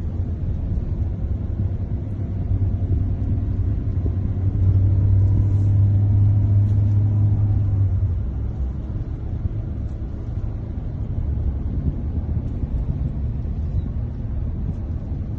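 Steady low rumble of a car driving on an asphalt road, heard from inside the cabin: engine and tyre noise, louder for a few seconds near the middle.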